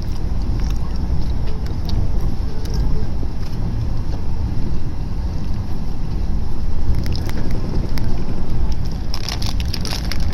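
Passenger train running at speed, heard from inside the carriage: a steady low rumble of wheels on the track with a hiss above it, and a cluster of sharp clicks and rattles near the end.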